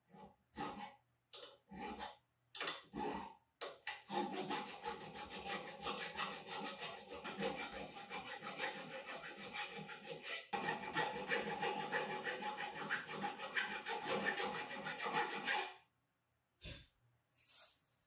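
Hand tool rasping on the rusted metal of an old coffee grinder: a few separate strokes, then a long run of fast back-and-forth strokes with a brief break about ten seconds in, and two more strokes near the end.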